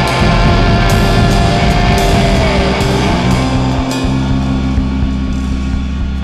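Rock song with electric guitars, bass and a drum kit playing.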